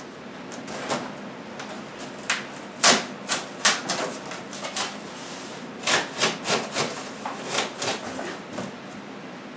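Irregular knocks, taps and short scraping rubs from cardboard and wooden boards being handled and set against a harp's body. They come in two busy flurries, with the loudest knock about three seconds in.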